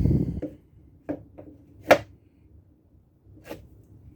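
Metal impact wobble sockets being handled and set down on a hard surface: a dull thump at the start, then a few separate clicks and clacks, the sharpest about two seconds in.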